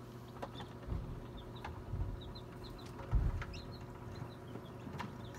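Newly hatched chicks peeping in an incubator: many short, high cheeps scattered through, over a steady low hum, with a few low thumps, the loudest about three seconds in.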